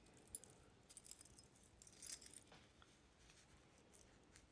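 Faint jingling and clinking of the metal rings on a ring sizer being handled, a few light clinks in the first half.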